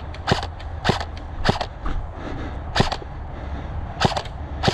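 Airsoft gun firing single shots: about five sharp cracks spaced irregularly, over a steady low rumble.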